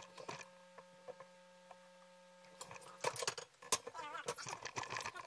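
Handling noise as the camera is moved closer to a hard case: a sharp click at the start, then a quiet stretch with a faint steady electrical hum, and from about three seconds in a run of knocks, clicks and scraping.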